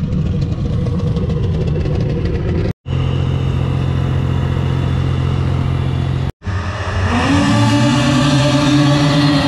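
Snocross racing snowmobile engines running, in three short stretches split by two abrupt cuts. Near the end the engine pitch rises, then holds high.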